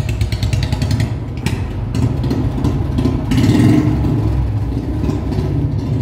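Royal Enfield Bullet 350 Standard's single-cylinder engine running through a long-bottle 'Bada Punjab' aftermarket silencer as the bike rides off, with a loud, pulsing exhaust note. It gets louder about three and a half seconds in as the throttle is opened.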